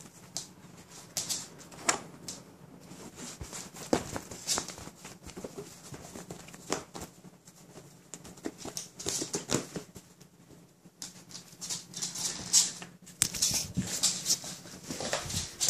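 Scattered light clicks, taps and rustles from a Shetland Sheepdog moving about close by: paws pattering on a wooden floor and fabric rustling as it noses at it. The clicks come in quick clusters, busiest in the second half.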